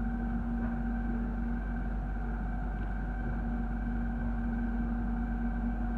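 Steady low rumble with an even hum over it, heard inside the carriage of an electric airport train running at constant speed.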